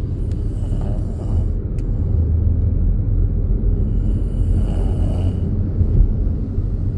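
Mahindra XUV300 driving at highway speed: a steady low rumble of engine and tyre road noise, with a hiss that swells twice, about a second in and again around five seconds in.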